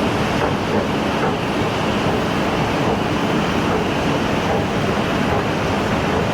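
Steady, loud rushing of air from air-conditioning vents along an enclosed walkway.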